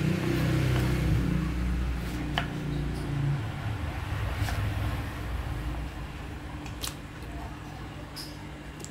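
A knife clicks now and then against a cutting board as sweet potato is diced into cubes. Under it runs a low hum, louder at first, that fades away about two-thirds of the way through.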